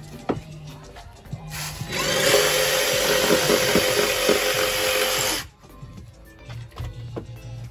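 A handheld power tool runs for about three and a half seconds, working a pine cladding board. It starts about a second and a half in and cuts off suddenly.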